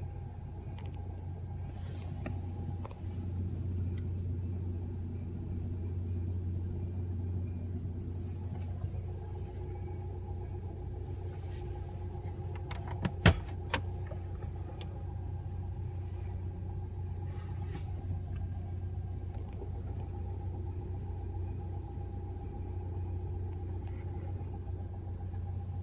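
Air-conditioning vent making an abnormal noise: a steady low hum with a faint, higher steady whine over it. A short cluster of sharp clicks about halfway through is the loudest moment.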